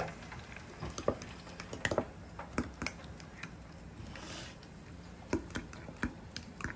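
Metal spoon stirring thick tartar sauce in a glass measuring cup, clicking irregularly against the glass.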